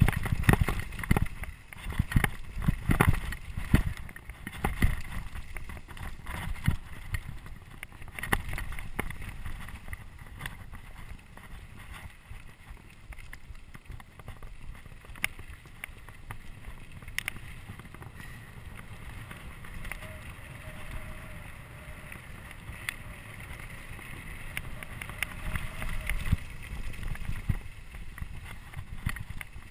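Trek Remedy 8 mountain bike rolling fast downhill on dirt and gravel: tyres rumbling, the bike knocking and rattling over bumps, wind buffeting the camera microphone. The knocks are thick in the first several seconds, then it settles into a steadier tyre rumble on the gravel road.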